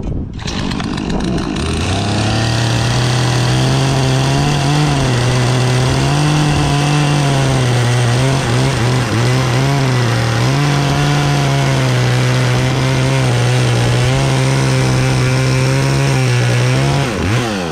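Poulan Predator two-stroke chainsaw revving up over the first couple of seconds, then held at high throttle with its pitch repeatedly sagging and recovering as it bogs under load in the cut. The chain is dull.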